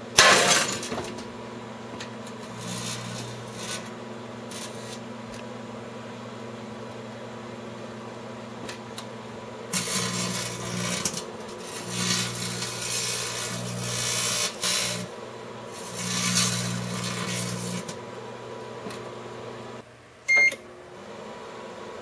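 Microwave oven running with a steady hum while an incandescent light bulb inside arcs into glowing plasma, giving a loud crackling burst right at the start and further spells of crackling and buzzing from about ten to eighteen seconds in. Near the end the hum drops out for a moment and a short beep sounds.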